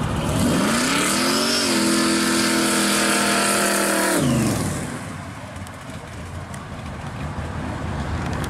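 Blown pro-street 1972 Chevy Vega with a supercharged engine, accelerating by on the road. Its engine note climbs in pitch and holds steady, then drops as the car passes about four seconds in. It then fades, quieter, as the car drives away.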